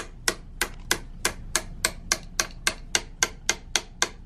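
Soft mallet tapping a drift to drive a Brompton folding bike's hinge pin: quick, evenly spaced blows, about three or four a second.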